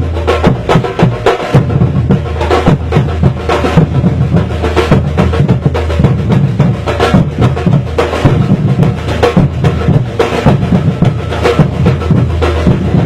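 Afro-Brazilian percussion group playing a maracatu rhythm with no singing: deep bass drums under dense, quick, sharp strikes, steady throughout.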